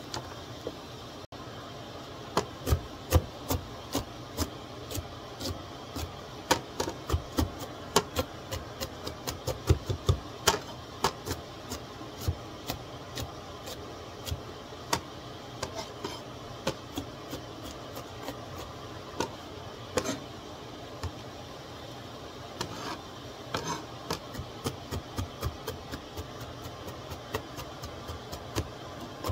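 Cleaver blade chopping garlic on a plastic cutting board: a run of sharp, irregular knocks, sometimes in quick bursts. They come thick and loud in the first ten seconds or so, thin out in the middle, and speed up again near the end.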